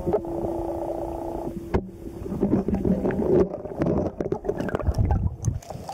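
Metal detector target tones sounding underwater as the coil is swept slowly over river rocks: a steady tone for about two seconds, then a lower tone for about another second. Knocks and a muffled rumble come from the coil and shaft bumping among the stones. The signal comes from a Civil War Schenkl artillery shell buried in the rocks.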